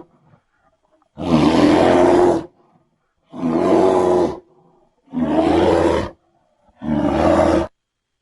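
Four monster roar sound effects for a Gigantopithecus giant ape, one after another, each about a second long with a short silent gap between them.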